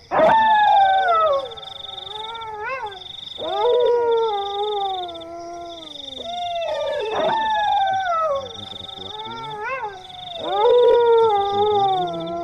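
Several dogs howling together, their long howls overlapping and falling in pitch, in about four bouts with short rising yips between. A steady, pulsing high trill runs underneath.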